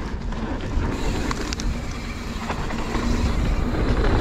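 Mountain bike riding fast down a dirt trail: wind rushing over the microphone and tyres rolling on dirt, with a few sharp rattles from the bike over bumps. It gets louder toward the end as speed builds.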